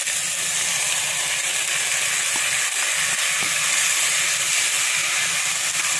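Chopped tomatoes frying in hot oil with sautéed onions, a steady loud sizzle while they are stirred with a wooden spatula, as the tomatoes start to cook down.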